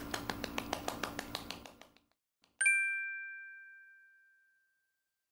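A rapid run of light ticks, about eight a second, fading out over the first two seconds, then a single bright bell-like chime struck once and ringing out for about a second and a half.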